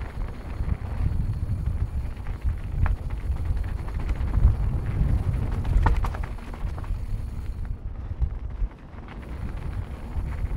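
Wind buffeting the microphone over the low rumble of a mountain bike's tyres rolling fast down a dirt singletrack, with a few sharp clicks from the bike over bumps about three and six seconds in. The rumble dips briefly about eight seconds in.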